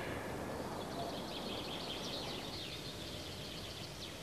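Faint outdoor ambience: a steady background hiss with distant birdsong, a thin run of high chirping calls that fades out over the last second or so.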